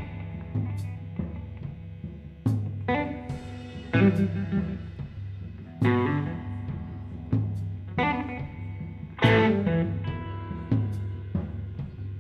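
Live instrumental rock from an electric guitar and a drum kit, no vocals. The guitar strikes accented chords every one to two seconds over a sustained low note, with sharp drum hits in between.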